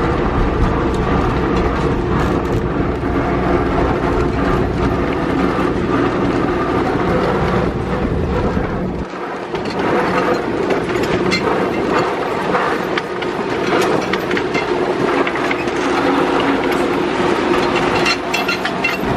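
Toonerville Trolley's narrow-gauge train cars rolling along the track, a steady rattling and clicking of wheels and running gear. A low rumble underneath drops away about nine seconds in, and sharp clicks come thicker in the second half.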